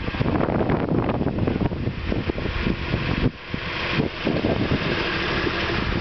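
John Deere 710D backhoe loader's diesel engine running, mixed with heavy, gusty wind buffeting on the microphone.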